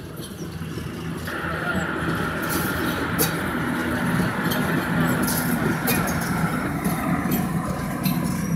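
ET22 electric freight locomotive passing with its motors humming and a steady whine from about one to seven seconds in, followed by tank wagons rolling over the rails with scattered sharp clicks. The sound grows louder as the train comes by.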